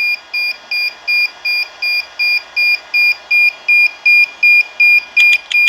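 Electronic warning beeper on a DJI Phantom 4 drone setup sounding a fast, even train of short high-pitched beeps, about three a second. It is an error alert, sounding while the quadcopter reports a damaged motor.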